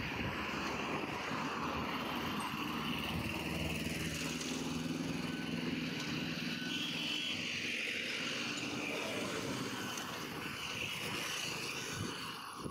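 Light road traffic on a city highway: cars, a small truck and motorcycles passing over the tyre hiss, with one vehicle's engine hum rising through the middle and fading away.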